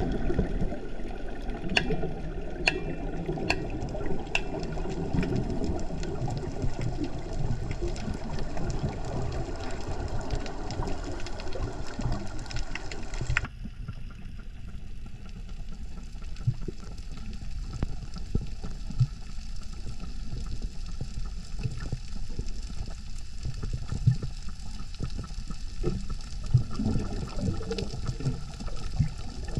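Underwater water noise: a continuous wash with bubbling and scattered clicks. About 13 seconds in it changes abruptly to a duller, muffled wash with occasional low knocks.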